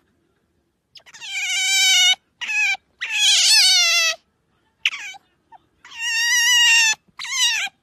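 Otter making high, cat-like meowing calls: three drawn-out wavering calls of about a second each, slightly falling in pitch, with shorter calls between them.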